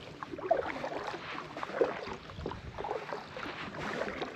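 Kayak paddle dipping into and pulling through lake water, with irregular small splashes and drips.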